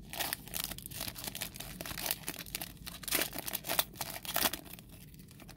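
Foil wrapper of a Panini Select UFC trading-card pack being torn open and crinkled by hand, a dense crackling that dies down near the end.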